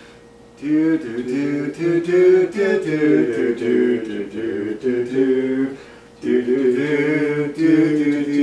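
Two men humming a song together without words, in long held notes, with short breaks near the start and about six seconds in.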